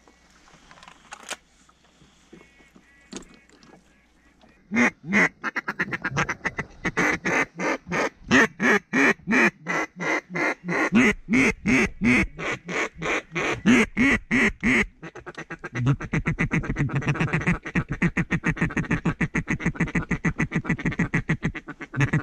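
Duck call blown close by: a long run of loud, evenly spaced quacks, about three a second, starting a few seconds in, then breaking into a faster, denser chatter for the last several seconds.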